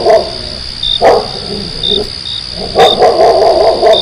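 Looped soundtrack: a short wavering, bark-like phrase repeats about every two seconds, alternating long and short, over a steady high whine with short chirps about once a second.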